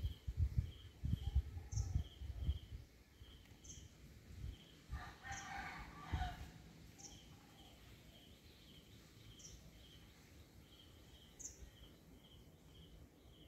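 Outdoor ambience. Small birds or insects repeat short paired chirps, with a sharper high note every second or two, and a rooster crows once about five seconds in. Low rumbling thumps, like wind on the microphone, run through the first couple of seconds.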